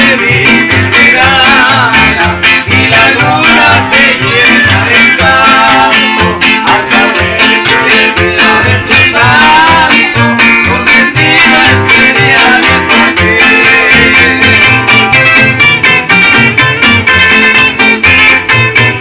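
A live trio of two acoustic guitars and an upright bass playing a song with a steady bass beat, with a man singing.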